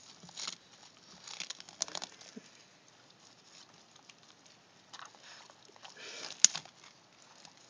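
A dog biting and tugging at peeling Plasti Dip rubber coating on a car: scattered soft crinkling and tearing sounds with chewing, and one sharp click about six and a half seconds in.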